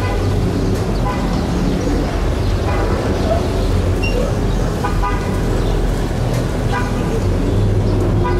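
Street traffic with a steady low vehicle rumble and several short car-horn toots, one every second or two.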